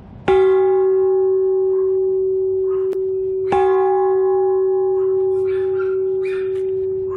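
A hanging steel gas cylinder used as a bell, struck twice, about three seconds apart. Each strike rings out in one long steady tone with higher overtones above it, still sounding when the next strike lands.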